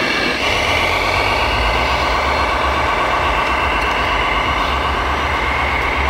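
Radio-controlled scale Volvo truck pulling a pipe-loaded trailer, running with a steady mechanical whine over a low rumble.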